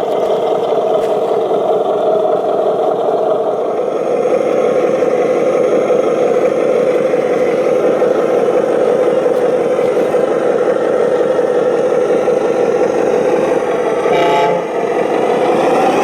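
Radio-controlled model truck running steadily, with a brief horn-like tone about 14 seconds in.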